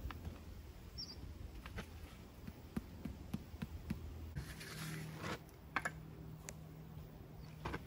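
Scattered light taps and clicks of stone and hand tools being worked, with a short scraping sound about halfway through, over a faint low hum.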